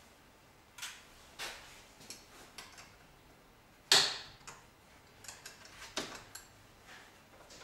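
Light clicks and taps of wires and metal clips being handled at the car battery, with one sharper click about four seconds in.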